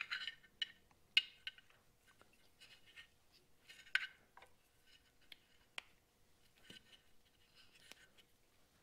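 Faint scratchy rubbing and a scatter of small clicks from hands working a rubber spark plug boot onto its ignition wire.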